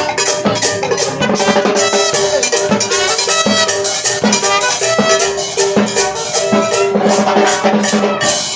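Live Latin dance band playing loudly: a steady rhythm of drums and shakers under sustained instrumental notes.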